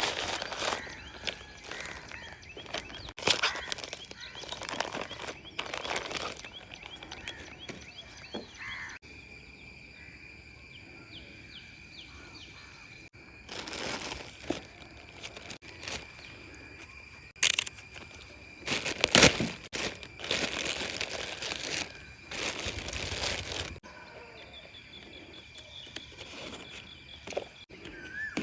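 Packaging being handled and rustled by hand in irregular bursts, with a steady faint high-pitched tone underneath.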